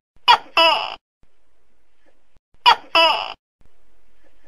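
Tokay gecko giving its two-syllable "to-kay" call twice, about two and a half seconds apart. Each call is a short sharp note followed by a longer note that falls in pitch.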